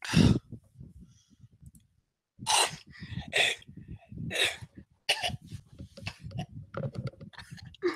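A man coughing four times, loudly, then a run of quick clicks.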